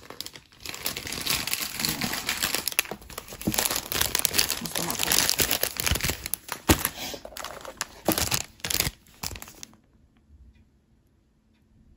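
Thin plastic packaging crinkling and rustling as it is handled, then stopping abruptly about ten seconds in.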